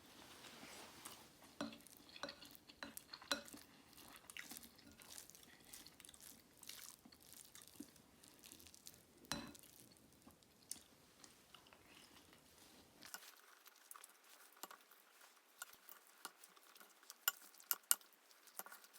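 Faint scattered clicks and clinks of a meal: cutlery tapping on dishes, with some chewing.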